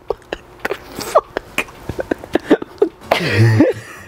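A young man laughing hard into his hand in short, breathy bursts, with one louder, longer burst of laughter about three seconds in.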